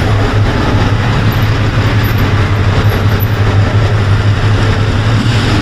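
Bus engine running close by, a steady low drone, over general street traffic noise.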